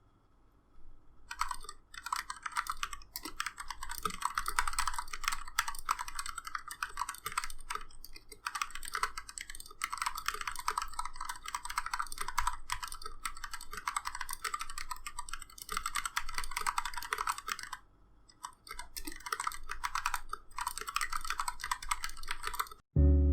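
Typing on a KPRepublic YC66 mechanical keyboard with Gateron Milky Black linear switches lubed with Krytox 205g0: a fast, continuous run of keystrokes starting about a second in, with a brief pause near the end.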